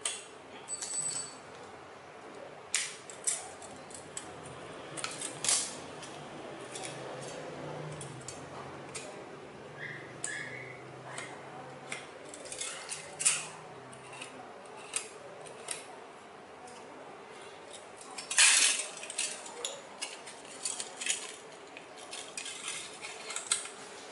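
Thin aluminium strips cut from a beer can being bent and handled, giving scattered light metallic clicks and crinkles, with a louder cluster about three quarters of the way through.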